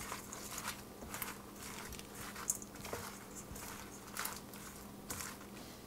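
Rubber spatula folding dressed baby spinach leaves in a metal bowl: soft, irregular wet rustling and squishing of the leaves.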